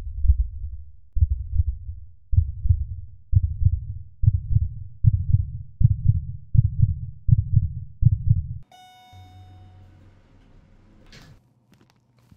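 Heartbeat sound effect: loud low double thumps that speed up steadily, then stop suddenly about nine seconds in. An elevator arrival chime rings once as they stop, followed by a faint low hum and a brief sweep near the end.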